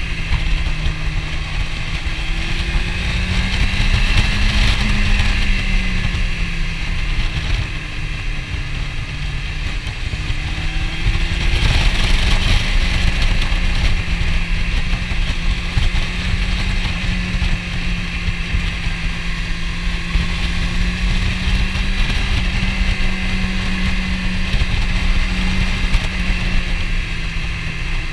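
Motorcycle engine running steadily at cruising speed, its pitch rising and falling gently with the throttle, under heavy wind buffeting on the microphone.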